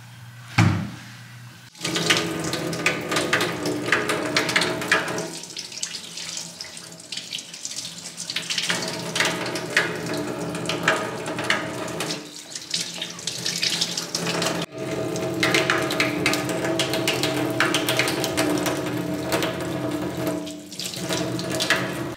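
Faucet water running into a stainless-steel sink while kokanee salmon fillets are rinsed under the stream. The flow starts about two seconds in and breaks off for an instant a little past the middle.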